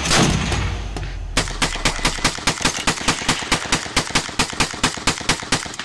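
A single heavy rifle shot with a long, echoing tail, then from about a second and a half in a rapid, even string of rifle shots at about six a second that cuts off suddenly.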